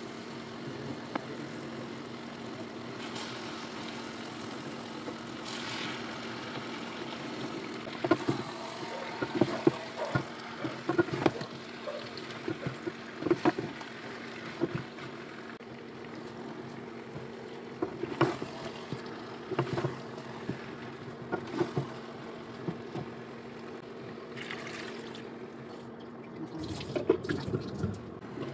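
Chicken pieces frying in oil and spice paste in a nonstick pan, with a steady sizzle. Through the middle, a wooden spatula knocks and scrapes against the pan in short irregular strokes, and there is a brief clatter near the end. A steady low hum runs underneath.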